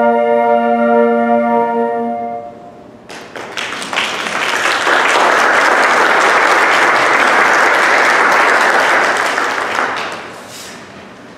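A flute choir holds its final chord, which is cut off about two and a half seconds in. After a short pause the audience applauds for about seven seconds, dying away near the end.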